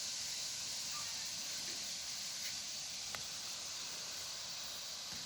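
A steady high-pitched hiss with a few faint clicks.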